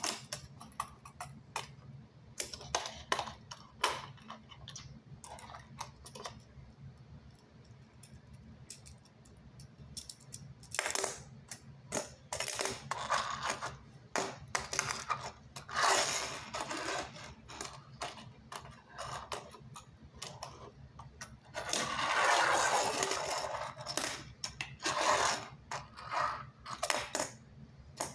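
Fingerboard tricks on a tabletop: the little deck clacking and tapping against the table over and over, with several spells of its plastic wheels rolling across the surface, the longest a couple of seconds about three-quarters of the way through.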